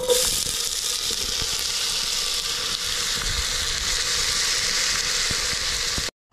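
Chopped onions sizzling steadily in hot oil in an enamel pot, starting suddenly as they are tipped in. The sizzle cuts off abruptly just before the end.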